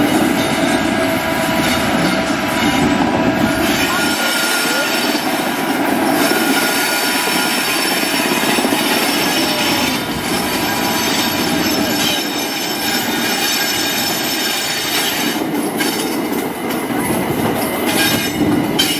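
MRS Stadler electric rack locomotives rolling past on the yard track, with steel wheels squealing on the rails over a steady running noise.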